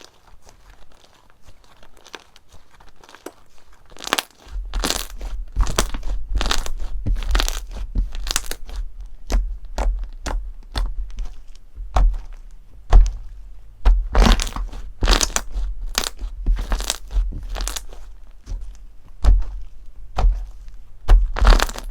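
Crunchy slime being squeezed and pressed by hand close to the microphone: faint crackling at first, then from about four seconds in a dense, irregular run of loud crackles and crunching pops over dull low thuds.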